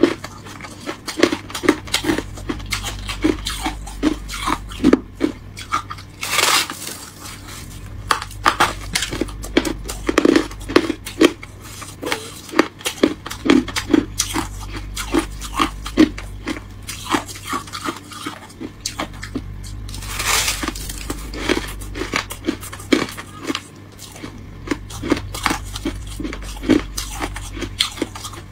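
Freezer frost being bitten and chewed close to the microphone: a steady run of crisp crunches, about two a second, with a longer, louder crunch twice, about six seconds in and again near twenty seconds.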